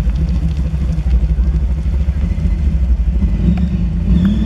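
Formula Offroad hillclimb car's big naturally aspirated engine, about 850 hp with no nitrous, supercharger or turbo, pulling hard up a steep dirt slope. It is a loud, steady deep rumble, with the revs shifting up and down near the end.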